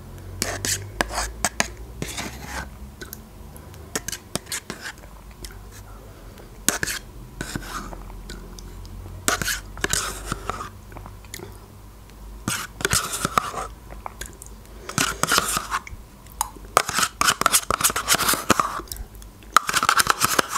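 Mouth sounds of eating yogurt, with a metal spoon clicking and scraping inside a plastic yogurt cup as the cup is scraped out; the noises come denser and louder in the last few seconds.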